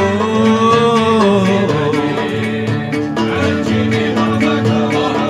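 Live Arabic song with a male singer and a plucked-string ensemble that includes a banjo. For the first second and a half or so the singer holds a long note that bends in pitch, then the instruments play on without the voice.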